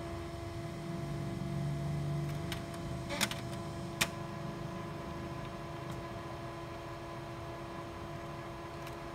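HP Color LaserJet M277n colour laser printer running its calibration cycle: a steady mechanical hum with a few faint steady tones, and two sharp clicks about three and four seconds in.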